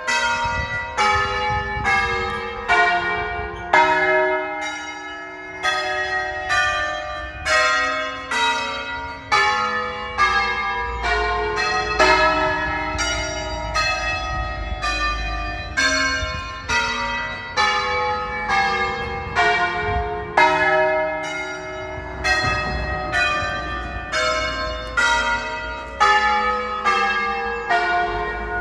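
Church bells in E-flat, the nine largest of a 12-bell Veronese-style concerto, rung by hand by a team of ringers. Strokes of different pitches follow one another roughly one to two a second, each ringing on into the next.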